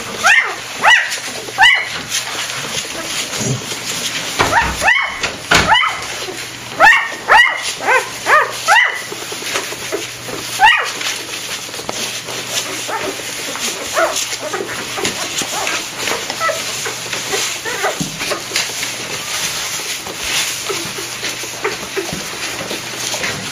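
Week-old golden retriever puppies squeaking and whimpering: many short, high-pitched squeals in quick runs during the first half, then fainter, scattered squeaks.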